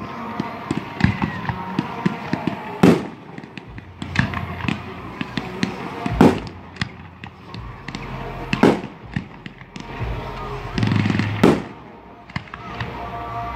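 Aerial fireworks going off: four loud bangs of bursting shells about every three seconds, with many smaller crackling pops between them.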